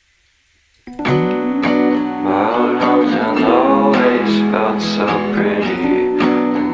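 Near silence for about the first second, then background music starts: an acoustic guitar strumming a steady rhythm, the intro to a song.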